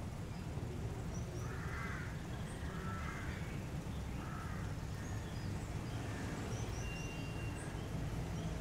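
Outdoor town ambience: a steady low rumble with three short, harsh crow-like calls in the first half and a few faint high bird chirps.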